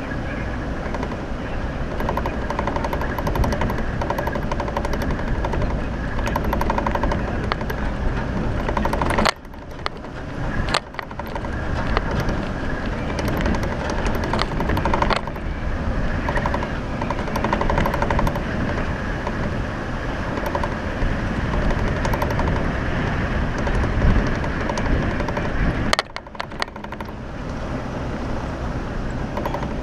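Jeep Wrangler driving over a rough dirt trail: engine running under a steady noise of rapid rattling and knocking. The level drops suddenly for a moment about nine seconds in and again near the end.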